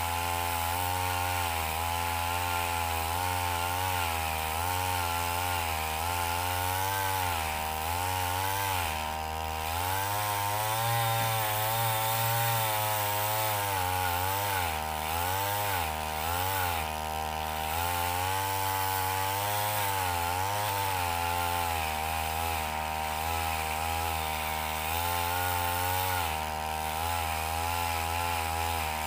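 Backpack brush cutter fitted with a chainsaw bar attachment, running continuously while cutting into a coconut palm trunk. The engine note keeps dipping and picking back up as the chain bites into the wood and eases off.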